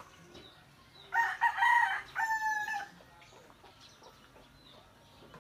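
A rooster crowing once: a loud call of nearly two seconds, starting about a second in, in two parts with a short break in the middle. Faint bird chirps sound around it.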